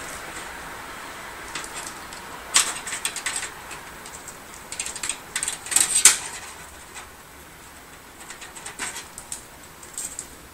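Scattered small clicks and rattles of computer parts and cable connectors being handled while fitting a front case fan, with a few sharper clicks about a third of the way in and near the middle.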